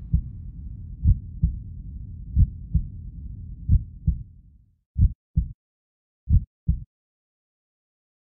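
Heartbeat sound effect: about six lub-dub double thumps, deep and low, one every second and a bit. A low rumble under the first four stops about four and a half seconds in, leaving the last two beats on their own.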